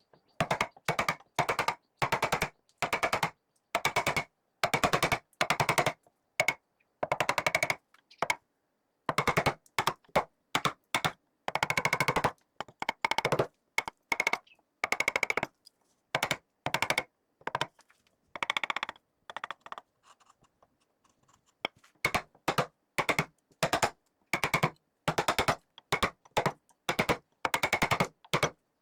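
Rapid mechanical hammering on wood in short bursts, each a fraction of a second to about a second long, with a brief pause around twenty seconds in: a power carving tool working a piece of wood.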